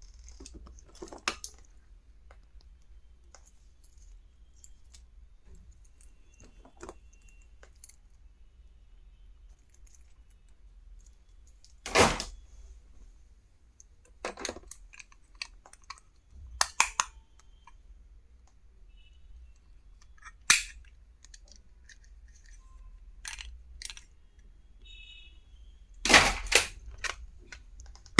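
Irregular clicks, taps and knocks of plastic stationery and packaging being handled, a few louder snaps among quieter rustles.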